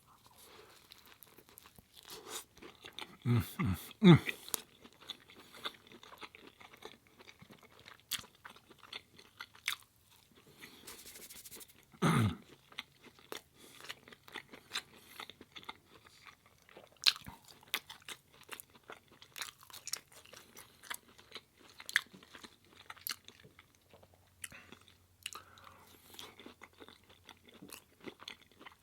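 Close-miked chewing and crunching of food: a steady run of small moist crackles and clicks, with louder moments about three to four seconds in and again about twelve seconds in.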